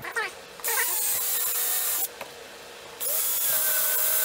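Ridgid cordless drill with a step drill bit boring through a plastic bucket, in two runs with a short pause between. The first starts about half a second in and stops at about two seconds; the second starts about three seconds in.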